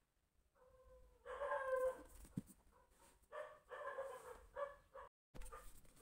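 Faint, drawn-out pitched calls from an animal, in several bursts, with the sound cutting out briefly about five seconds in.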